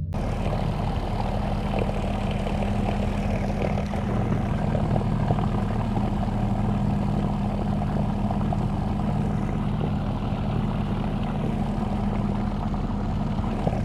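Boat's electric motor running steadily under load, with its propeller churning water, as the grounded boat works free of the mud. There is a steady low hum under a dense rushing noise that starts abruptly at the beginning.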